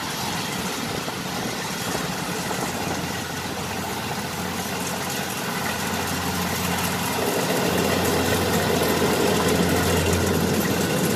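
Combine harvester engine running steadily, growing louder about seven seconds in.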